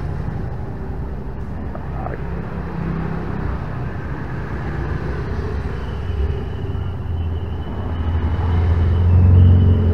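Low steady rumble of a motor vehicle engine, swelling louder near the end as if a vehicle is passing close by.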